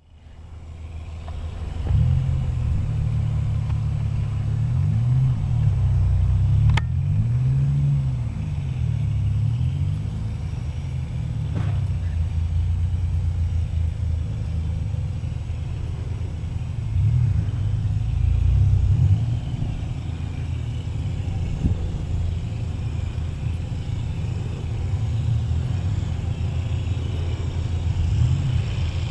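GE 110-ton diesel switcher locomotive running as it slowly approaches, a deep steady engine rumble whose pitch wavers up and down in the first several seconds.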